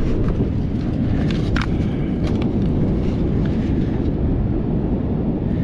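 Wind buffeting the microphone as a steady low rumble, with a few light clicks from a bicycle helmet's plastic strap buckle being handled.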